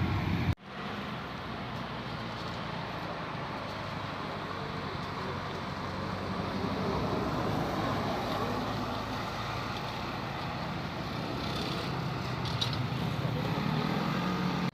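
Road traffic noise: vehicles running on the road, a steady noise with no horn sounding, starting after a sudden break about half a second in.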